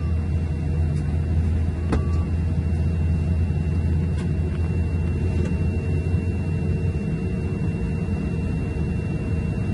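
Steady low rumble of a Boeing 787's engines and airframe heard inside the cabin at a window seat, with a thin steady whine above it, as the airliner lines up for takeoff. A single faint click about two seconds in.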